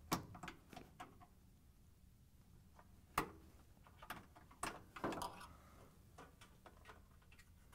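Sharp plastic clicks and knocks of wire harness plugs being unlatched and pulled from a washer's motor control board. A few light clicks come at first, then a single loud snap about three seconds in and a cluster of clicks around the fifth second.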